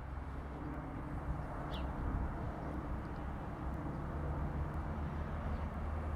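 DB Class 146 electric locomotive approaching on the main line, a steady low rumble and hum that holds even throughout. A single short bird chirp comes about two seconds in.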